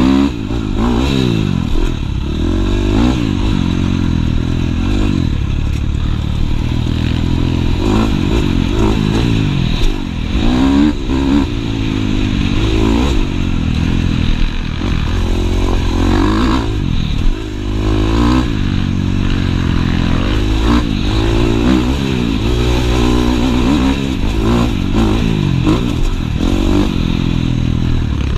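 Husqvarna dirt bike engine, heard from on the bike while it is ridden hard, revving up and down: the pitch climbs and falls again every second or two as the throttle opens and closes, with a couple of brief drops in loudness.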